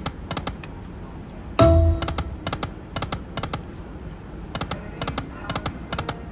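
Lightning Link Tiki Fire video slot machine's sound effects: quick clicking ticks in short clusters as the reels spin and stop, with a brief loud electronic tone about a second and a half in as the next spin starts.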